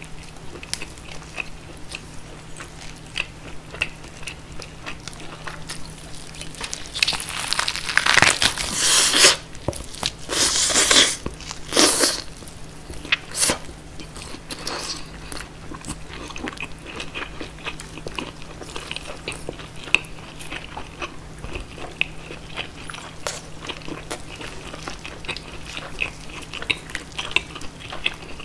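Close-miked chewing and biting of roast pork knuckle, a steady run of wet, sticky mouth sounds. Several loud crunches between about 7 and 12 seconds in come from biting the crisp roasted skin.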